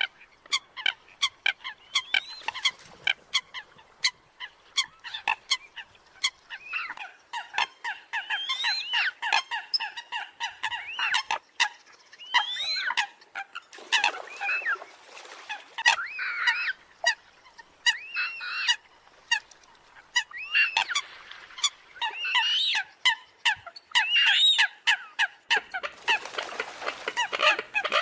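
Eurasian coots calling in a rapid, dense run of short sharp calls and clicks, several birds overlapping. This is a trappers' lure recording of rival coots calling competitively. Near the end a rush of noise joins the calls.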